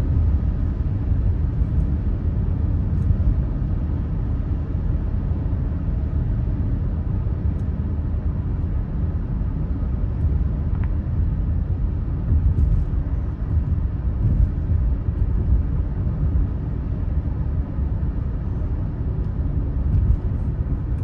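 Steady low rumble of a car driving along a highway: tyre and engine noise heard from inside the moving car.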